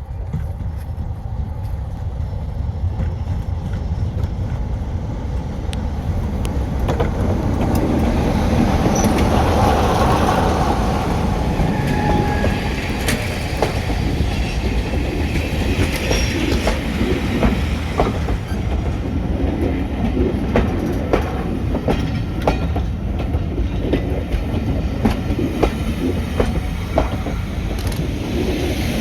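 Heritage diesel train passing close by: the engine rumble builds to its loudest about ten seconds in, then the wheels clatter with sharp clicks over the rail joints as the coaches go past.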